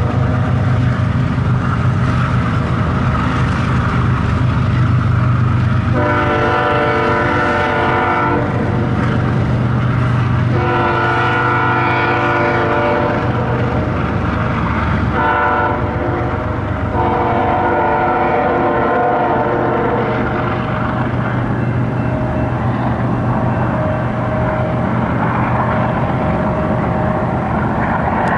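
Diesel freight locomotive's air horn blowing the grade-crossing signal: two long blasts, a short one and a long one, each a chord of several tones, over the locomotive's steady engine rumble. The engine and the rolling cars run on after the horn stops.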